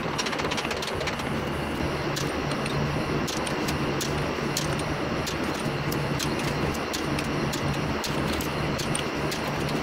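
Socket wrench clicking as the crankshaft main bearing cap bolts are tightened, a sharp click every half second to a second, over a steady hum of workshop noise.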